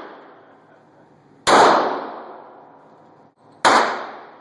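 Smith & Wesson M&P 40 pistol firing .40 S&W rounds: two shots about two seconds apart, each ringing out and dying away over about a second. The tail of an earlier shot fades at the start.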